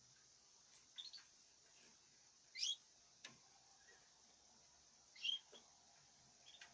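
A caged bird giving short, sharp chirps. Two louder chirps come a few seconds apart, with a few fainter chirps and a click between them, over a faint steady hiss.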